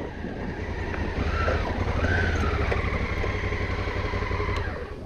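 Adventure motorcycle running at a steady road speed, engine rumble mixed with wind and road noise; the sound drops away near the end.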